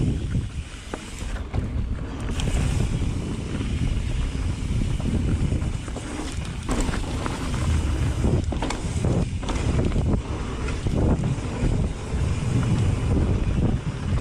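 Mountain bike descending a dirt singletrack at speed: wind rushing over the bike-mounted camera's microphone, tyres rolling on packed dirt, and scattered knocks and rattles from the bike as it hits bumps.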